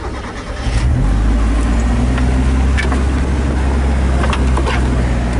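Mazda Miata's four-cylinder engine, heard from inside the cabin, comes in about a second in and then runs at a steady idle. A few light clicks sound over it.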